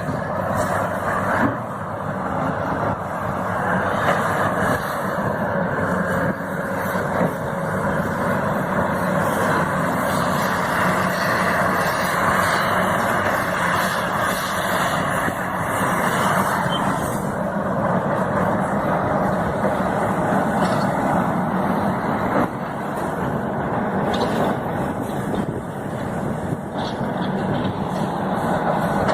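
Heavy diesel engine of a large Volvo excavator running steadily under load, its level dipping briefly a few times.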